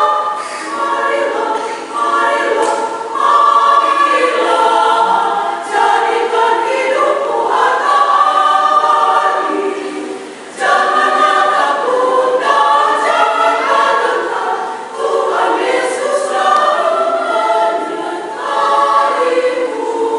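A women's church choir singing a march without accompaniment, with a brief break between phrases about ten seconds in.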